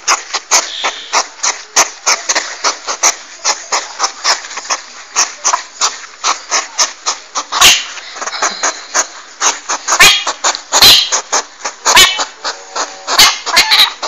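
Porcupine sounds: a rapid, irregular run of clicks and crackles, with a few louder sharp knocks about 8, 10, 11 and 12 seconds in.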